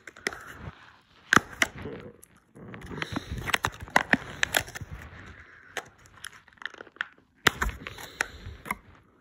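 Handling noise: irregular clicks, taps and rustling as a hand moves and fumbles close to the phone's microphone.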